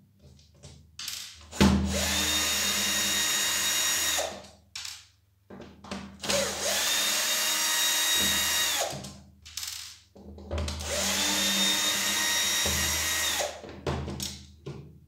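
Battery screwdriver (cordless drill-driver) backing out the Phillips screws of a plastic pressure-washer spray gun. Its motor whines in three runs of two to three seconds each, then gives a few short bursts near the end, with small clicks of handling in the pauses.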